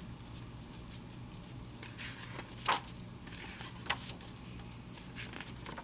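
Pages of a hardcover picture book being opened and turned, with soft paper rustles and a couple of sharper page flicks near the middle, over a steady low hum.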